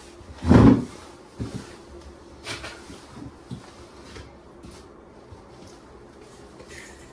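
A loud, short thud about half a second in, followed by a scatter of lighter knocks and clatters as objects are handled and set down.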